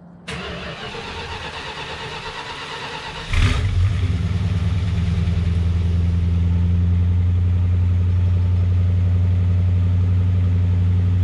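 1970 Dodge Coronet's 318 small-block V8 on a cold start: the starter cranks for about three seconds, the engine catches with a burst, then settles into a steady idle.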